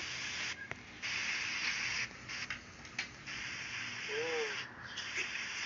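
Salon hood hair steamer hissing steadily, cutting out briefly several times; a short hum of a voice about four seconds in.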